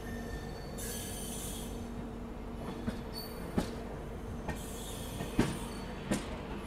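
Passenger train rolling slowly out of a station, heard from one of its coaches. Over a steady hum come a few sharp knocks as the wheels cross rail joints and points, the loudest about five and a half seconds in, and two short spells of high hiss.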